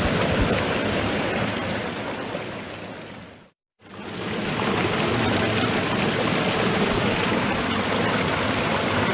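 Rushing water of a waterfall, a steady loud roar that fades out about three seconds in, stops briefly, then starts again and holds steady.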